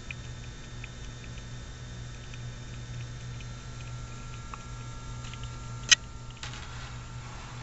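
Faint steady hum with light, scattered ticking from the small motors spinning the model starship's Bussard collector domes, with one sharp click about six seconds in.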